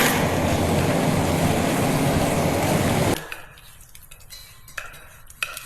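Tomato, egg and scallions stir-frying in a pan: a steady sizzling hiss that cuts off abruptly about three seconds in, followed by a few light clinks of a utensil against the pan.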